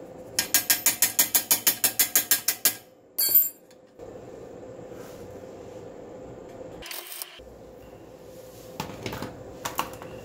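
A hand ratchet clicking rapidly, about six clicks a second for roughly two and a half seconds, followed by a short metallic clink. A few faint knocks of tools on metal come near the end.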